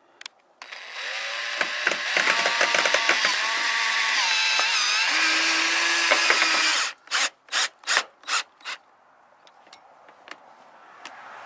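Cordless drill driving a screw into steel roof panelling: a loud, continuous whirring of about six seconds whose whine shifts in pitch as it bites, then five quick short bursts of the drill.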